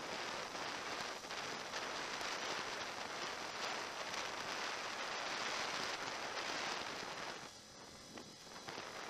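Steady rushing and hissing of flowing creek water, dropping away briefly for about a second near the end.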